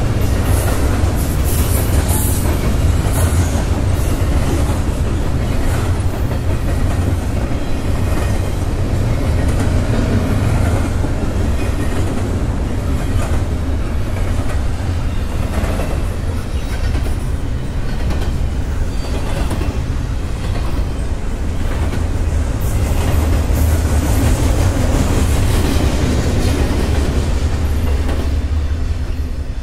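Double-stack intermodal freight train's container cars rolling past on steel wheels: a steady rumble with the clickety-clack of wheels over rail joints.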